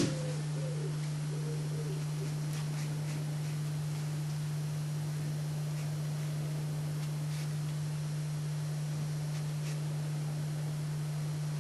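A steady low hum, with one sharp click at the very start and a few faint light ticks scattered after it.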